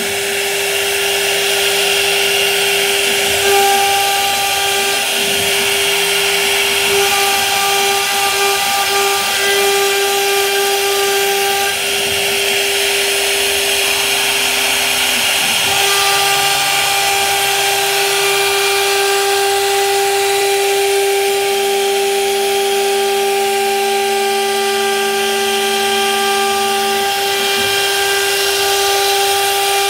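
CNC router spindle running with a steady high whine as its bit cuts grooves into a wooden panel, over a constant hiss of cutting.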